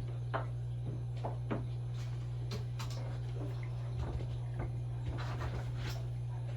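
Faint scattered clicks and rubbing from objects being handled, over a steady low hum.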